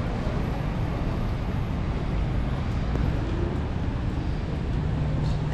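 Steady city street noise of traffic on wet roads, with a low rumble underneath.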